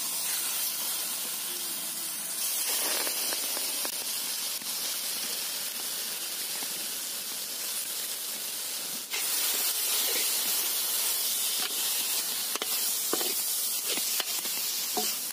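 Pieces of goat liver and lung sizzling in hot groundnut oil and spices in a large iron wok: a steady hiss with a few faint ticks, growing louder about nine seconds in.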